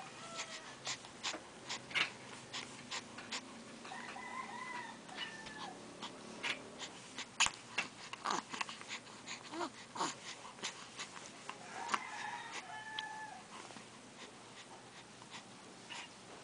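A pet animal giving short whining calls in two bouts, among many sharp clicks.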